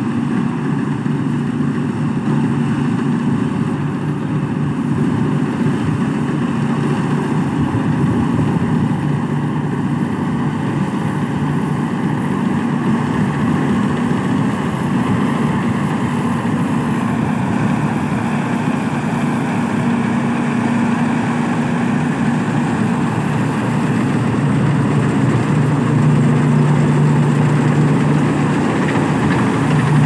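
Thai Seng rice combine harvester running steadily as it cuts rice, a continuous engine drone with a steady low hum, growing a little louder near the end as the machine comes close.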